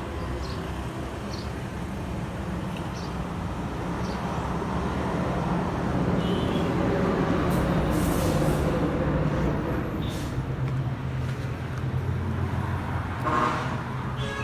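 Echo SRM-311F brush cutter's small two-stroke engine running steadily, getting louder in the middle and then settling back a little lower.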